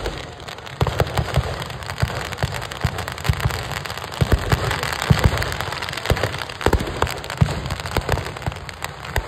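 Firecrackers in a burning Ravana effigy going off as a dense crackling with many irregular sharper bangs, thickest around the middle.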